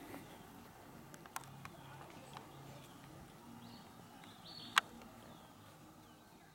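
Quiet outdoor background with faint distant voices and a few sharp clicks, the loudest about five seconds in.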